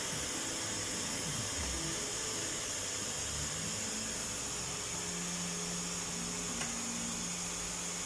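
Steady hiss, with faint low tones coming and going underneath.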